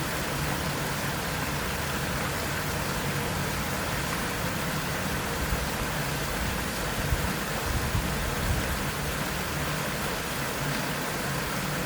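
Small waterfall's water falling and rushing steadily as an even hiss.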